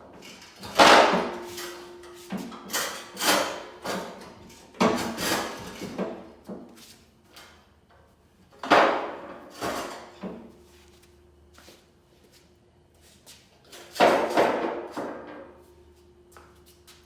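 A series of sharp knocks and clanks in clusters, loudest about a second in, around nine seconds and around fourteen seconds, as parts are handled and set down during the lift install. A faint steady hum sits underneath.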